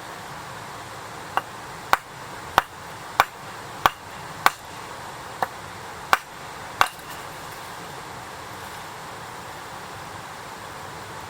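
A run of about nine sharp, ringing knocks, evenly spaced about two-thirds of a second apart, over a steady hiss; the knocks stop a little past the middle.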